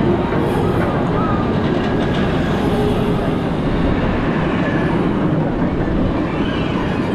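Roller coaster train being hauled up a chain lift hill: the steady mechanical clatter of the lift chain and train running on the track.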